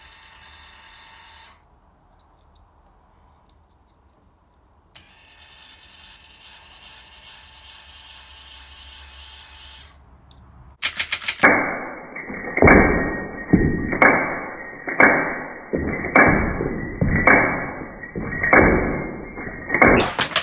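Homemade multi-stage electromagnetic coil gun and its solenoid autoloader cycling: after a faint hum, about eight loud, sharp clacks follow roughly a second apart in the second half, each dying away quickly.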